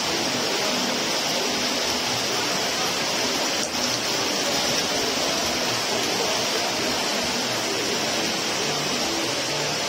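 Heavy rain pouring down steadily onto roofs and wet pavement, a dense, even hiss.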